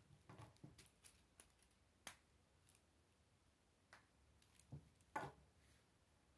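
Faint clicks and snaps of K'nex plastic pieces being handled and pressed together, then a couple of louder knocks about five seconds in as the finished model is set down on the wooden table.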